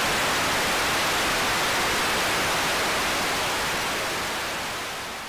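Steady hiss of static noise, like an untuned TV, fading out over the last two seconds.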